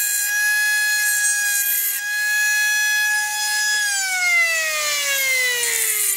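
Homemade brushless CNC spindle, a Turnigy P2627L 4200kv outrunner driving a Foredom H43T handpiece, whining steadily at full speed while drilling into a small piece of brass. After about four seconds it winds down, the whine falling steadily in pitch.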